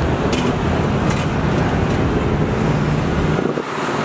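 Steady rumble of road traffic, with a few sharp clinks of steel plates in the first second or so.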